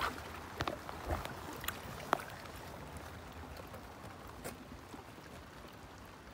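Steady rain with wet sloshing and a few sharp taps in the first couple of seconds, as a hand gropes in a waterlogged crab burrow.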